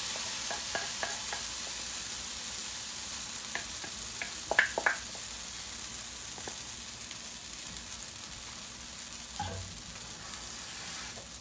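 Thick kita flatbread batter sizzling in hot oil in a frying pan, a steady hiss. Light clicks and a few taps, loudest about four to five seconds in, come as a utensil scrapes the last batter from a glass bowl.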